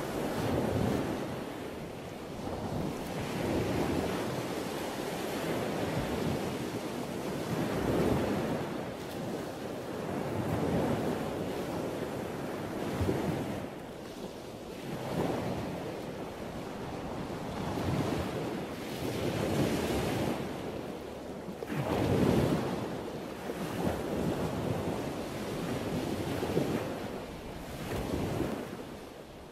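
Ocean surf washing in, swelling and falling back every two to three seconds, with wind.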